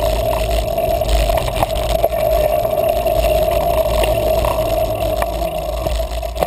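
Mountain bike rolling along a dirt singletrack: a steady hum from the tyres and bike with low wind rumble and scattered clicks and rattles from the trail.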